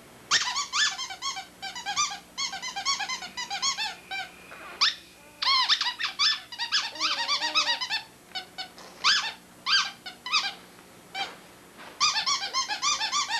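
Rapid high-pitched squeaking: short chirp-like squeaks several a second, in runs of one to two seconds broken by brief pauses.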